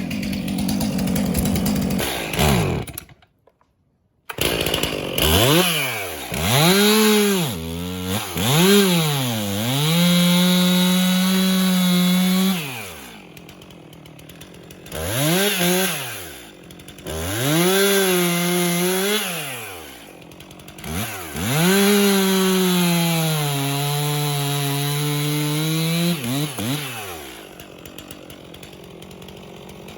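Chainsaw revving up and cutting into cherry wood several times, dropping back to idle between cuts. The engine pitch holds high through each cut and sags slightly under load during the longest one. The sound breaks off briefly about three seconds in.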